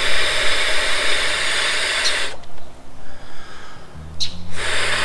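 Breath blown hard by mouth into the nozzle of a Klymit Luxe inflatable camping pillow: one long rushing blow of about two and a half seconds, a quick intake of breath, then a second blow starting near the end.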